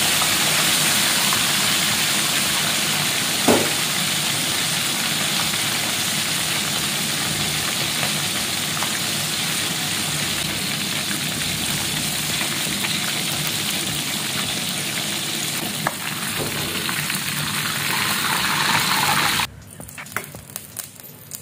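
Split white fish deep-frying in hot oil in a wok: a steady, loud sizzle, with one brief sharp sound about three and a half seconds in. The sizzling cuts off abruptly near the end.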